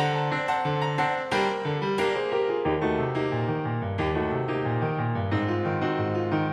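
Background music: piano notes played in a steady run, struck and ringing.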